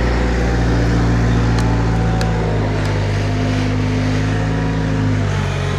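Skid steer engine running steadily, with a few faint clicks about a second and a half to three seconds in.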